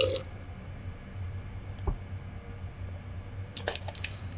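A swallow of iced drink from a glass mug ends right at the start. Then comes a soft knock about two seconds in and a quick run of glassy clinks near the end as the mug is handled and set down.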